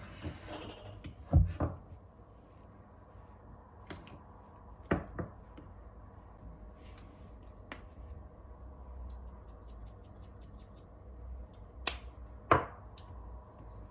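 Scattered sharp knocks and clicks of things being handled, in pairs a few seconds apart, over a low steady hum.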